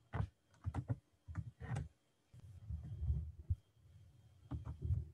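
Faint scattered clicks and taps at a computer keyboard, then duller low knocks, heard through a video-call microphone.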